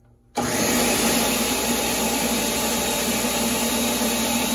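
Countertop blender switched on, starting abruptly about half a second in and running steadily at full speed, blending a batch of salsa.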